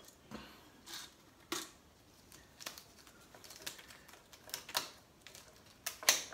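Small white decorative pebbles clicking against each other and against the glass as they are picked up and placed by hand. About a dozen separate, irregularly spaced clicks, the loudest near the end.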